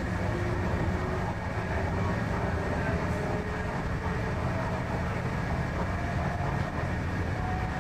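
Inside a Hyundai Rotem electric multiple unit on the MTR East Rail Line, running between stations: a steady rumble of wheels and running gear, with a faint whine rising in pitch in the first second.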